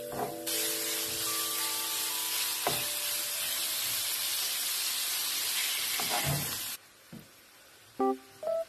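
Bacon strips frying in hot oil in a frying pan, a loud steady sizzle with a few knocks of a wooden spoon. The sizzling cuts off suddenly about two seconds before the end.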